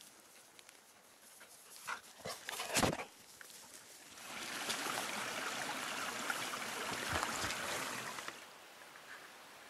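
A few sharp knocks and bumps about two to three seconds in, then a small brook rushing over stones for about four seconds before it fades.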